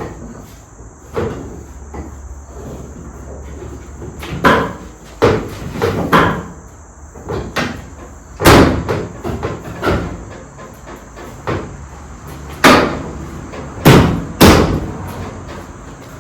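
Irregular knocks and thumps of sheet-metal car body panels being handled and test-fitted. The loudest bangs come about halfway through and in a cluster near the end.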